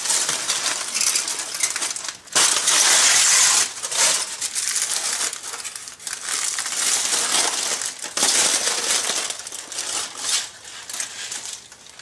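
Heavy-duty aluminium foil crinkling and crackling as several layers are peeled back and pulled away by hand. It comes in loud bursts, with short breaks about two and six seconds in, and fades away near the end.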